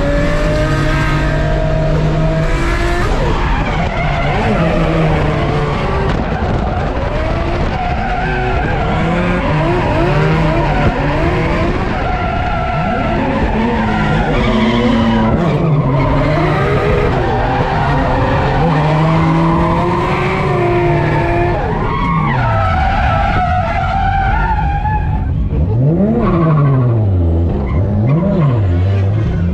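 Individual-throttle-body Nissan R33 Skyline drift car with its engine revving high and falling back again and again while the tyres skid. The revs dip sharply several times near the end.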